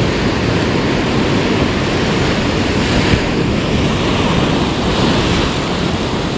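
Surf washing and breaking on the shore, swelling twice, with wind buffeting the microphone.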